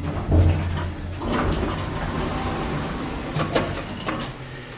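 Passenger elevator arriving at its floor and its sliding doors opening: a low hum and a thump about half a second in, then a long noisy slide, with two sharp knocks near the end.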